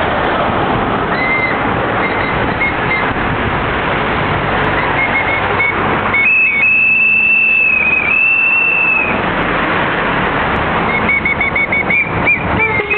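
High-pitched toots from picket-line noisemakers over loud steady background noise. There are a few short toots, then long held ones about halfway through, then a quick run of short toots near the end.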